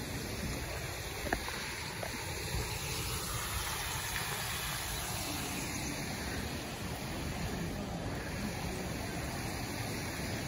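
Water rushing and churning through a canal lock's sluices into the lock chamber, a steady rushing noise, with one sharp click about a second in.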